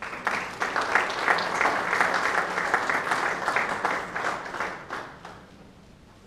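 Audience clapping, starting right away, holding for several seconds and dying away about five seconds in.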